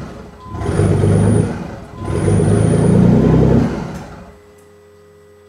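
Nissan 300ZX's 3.0-litre twin-turbo V6 running on open downpipes, with no catalytic converters and no exhaust, revved up twice. The engine sound dies away about four seconds in, leaving a faint steady hum.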